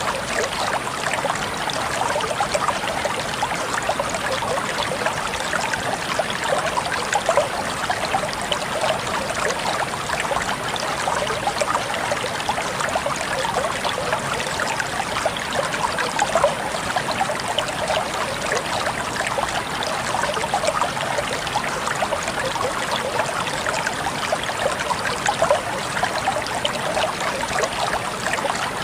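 Water flowing and splashing steadily over stones, a continuous babbling stream.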